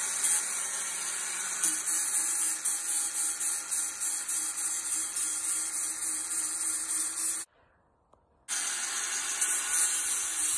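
Angle grinder with a flap disc running free: a loud, steady hiss over a faint hum. The sound cuts out for about a second past seven seconds in, then a similar steady power-tool hiss resumes.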